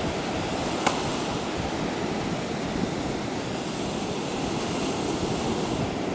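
Pacific surf breaking and washing up the beach in a steady wash of noise, with wind on the microphone. A single sharp click about a second in.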